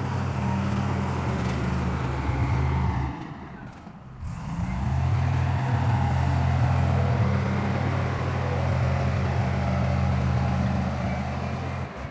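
Heavy diesel engine of earthmoving machinery running steadily with a low, even drone. The sound drops away briefly about three to four seconds in, then comes back at the same level.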